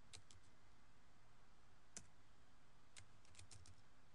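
Faint computer keyboard keystrokes, sparse and uneven: a few quick clicks at the start, a single one about two seconds in, and a short run of clicks a second later.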